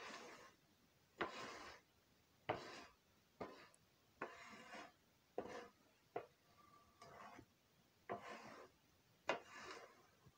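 A shovel scraping manure across the stall floor in repeated strokes, about one a second, each a sharp scrape trailing into a short rasping drag.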